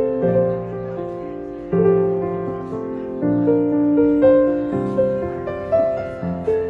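Background music: a slow, gentle piano piece, single notes and chords struck one after another and left to fade.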